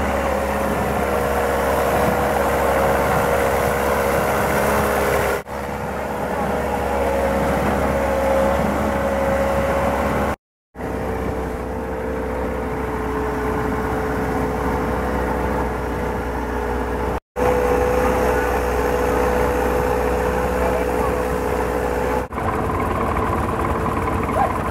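Long-tail boat's engine running steadily under way, heard from on board. The sound drops out for a moment about 5, 10 and 17 seconds in.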